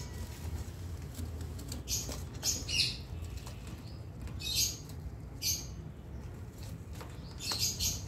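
Parrots giving short, harsh squawks, about seven in all, singly and in quick pairs.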